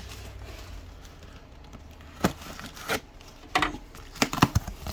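Cardboard and plastic shoe packaging being handled: a few short, sharp knocks and rustles, coming more often in the second half, over a steady low hum.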